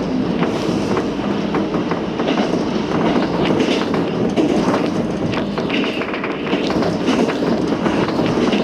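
JR Kyushu KiHa 200 diesel railcar running, heard from aboard: a steady rumble of wheels on the rails, broken by frequent clicks and clacks over rail joints.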